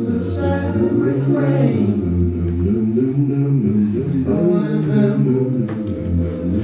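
A cappella vocal music: several voices singing together in held, overlapping notes, with no instruments.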